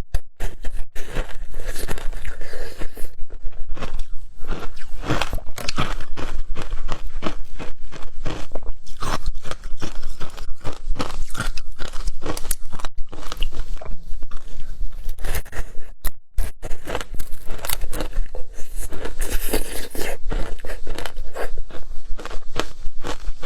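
A person biting and chewing frozen passion fruit ice close to the microphone: a continuous run of crunches, several a second.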